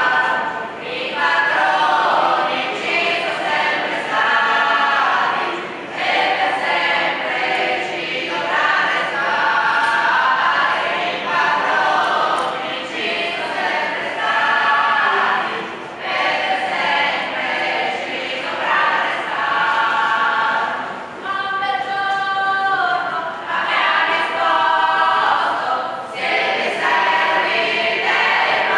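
A choir singing in held phrases of a second or two, with short breaks between them.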